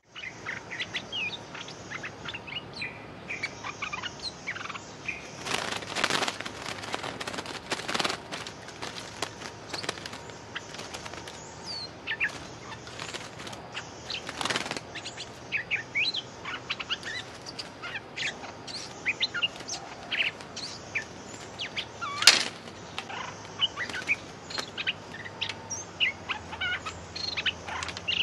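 Stripe-throated bulbuls calling with many short, quick chirps around a decoy trap cage. Brief bursts of wing-flapping break in several times, the sharpest about two-thirds of the way through.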